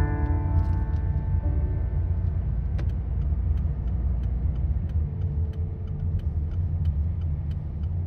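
Car running at low speed, heard from inside the cabin: a steady low rumble of road and engine noise, with faint small ticks scattered through it.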